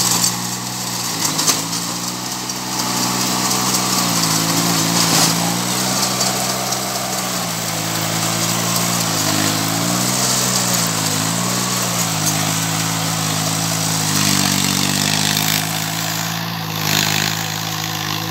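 Small compact tractor's engine running under load while it tills with a rear rotary tiller. Its note sags and recovers several times, around five, ten, twelve and fifteen seconds in.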